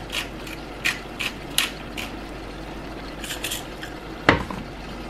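Pepper mill grinding black pepper into a saucepan: a string of short crisp clicks at irregular intervals, then a single sharp knock about four seconds in.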